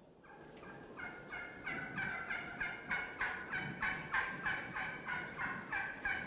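Wild turkey calling: a long, even series of short pitched calls, about three a second, growing louder over the first second or two and fading near the end.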